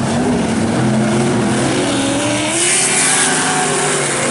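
Dirt-track racing truck engines running hard around the oval. The pitch climbs as a truck accelerates past, with a brief burst of hiss about two and a half seconds in.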